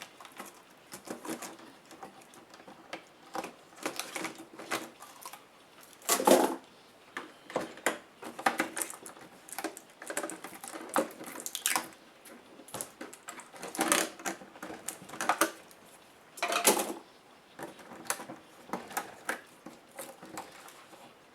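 Irregular clicks, taps and rattles of the plastic case and parts of a Compaq F700 laptop being handled and prised apart during disassembly, with a few louder knocks about 6, 12, 14 and 17 seconds in.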